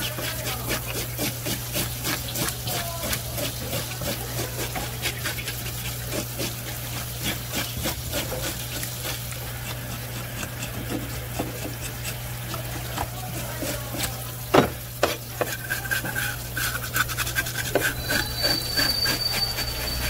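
Rapid scraping and rubbing of a knife working over a rock bream, with one sharp knock about two-thirds of the way through and a steady low hum underneath.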